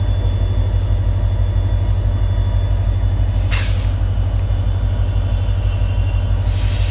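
WDG4 diesel locomotive's 16-cylinder EMD 710 two-stroke engine running with a loud, deep, steady hum and a fast even pulse. A short burst of air hiss comes about three and a half seconds in, and another hiss starts near the end.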